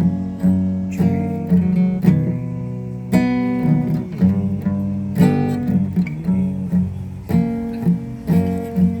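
Acoustic guitar being played, plucked and strummed chords ringing out with a new attack every half second to a second.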